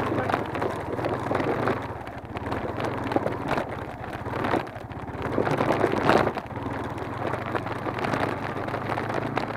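Motorcycle engine running at a steady low pitch, under uneven rushing noise from wind on the microphone.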